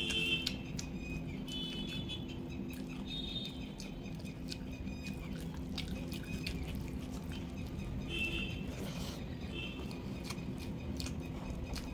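Fingers mixing rice and vegetables by hand on a plate: soft squishing with many small clicks, and a few short high chirps now and then over a steady low hum.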